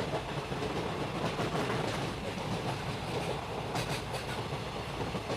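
A train running along the track, a steady rumble with wheels clacking over the rail joints and a few sharper clicks about four seconds in.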